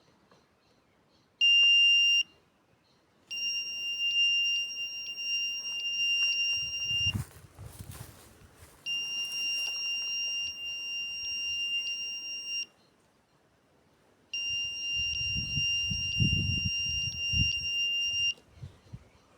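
A long-range gold locator's electronic buzzer sounding a steady high-pitched tone: one short loud beep about a second and a half in, then three longer tones of about four seconds each with short gaps between. A low rumble of handling or wind on the microphone comes in the middle and near the end.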